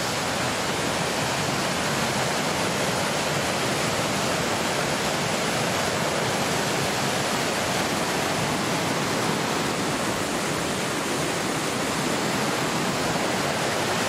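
Flowing water rushing steadily, a loud even hiss with no change.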